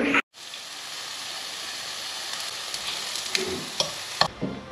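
Food sizzling in a frying pan while it is stirred, a steady hiss with a few sharp clicks of the utensil against the pan in the last second; the sizzle cuts off suddenly near the end.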